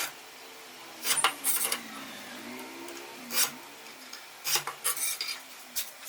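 Hand work on small metal parts: irregular scraping and rasping strokes with light clinks, and a faint wavering squeal in the middle.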